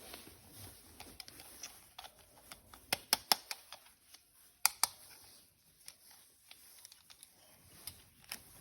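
Plastic toy parts being handled: light rustling with scattered sharp clicks and taps, a quick cluster of clicks about three seconds in and two more just before five seconds.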